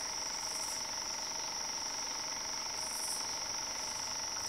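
Night insect chorus: a steady high cricket trill, with a few short, higher-pitched buzzes from other insects coming and going.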